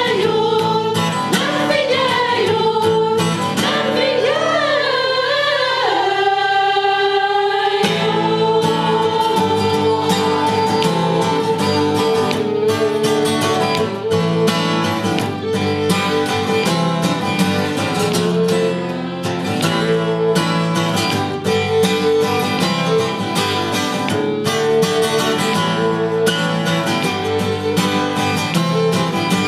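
Women's choir singing to strummed acoustic guitar and violin accompaniment. The wavering sung voices stand out for the first six seconds or so; after that held notes ring over steady guitar strumming.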